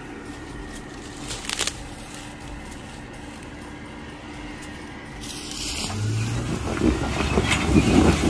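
Off-road Jeep's engine running low and steady, then about five seconds in revving up under load as it is driven at a rock obstacle, getting louder toward the end.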